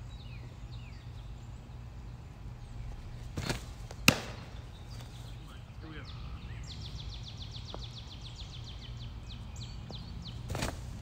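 A fast-pitched softball smacking into a catcher's glove: one sharp, loud leather pop about four seconds in, just after a short softer sound of the delivery. Birds chirp in the background, with a fast, even trill of clicks in the middle, and the next pitch's delivery sound starts near the end.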